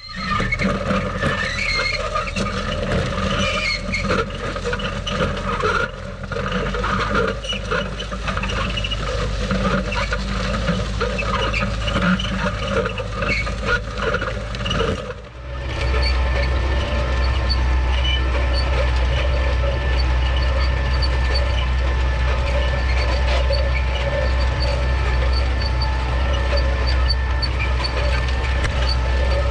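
Tractor-drawn disc harrow working through plowed clods: the steel disc blades cut and scrape the soil and the frame clatters irregularly over the tractor engine's steady running. About halfway the sound turns steadier, dominated by the engine's low, even hum.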